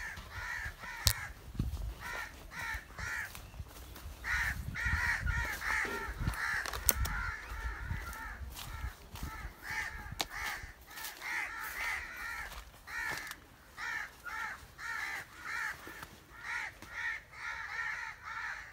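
Birds calling over and over: short, harsh calls in quick runs of several a second, with a few faint sharp clicks in between.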